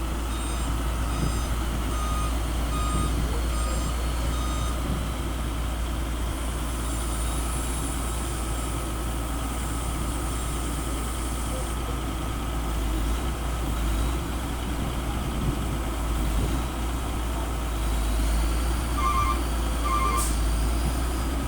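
Diesel heavy machinery running with a steady rumble, with a backup alarm beeping regularly, about every 0.7 s, for the first five seconds. A few quick chirping beeps come near the end.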